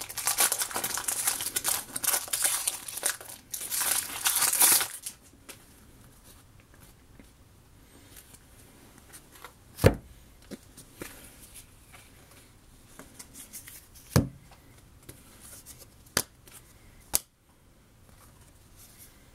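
Trading-card pack wrapper crinkling and tearing open for about five seconds, then a few separate sharp taps several seconds apart.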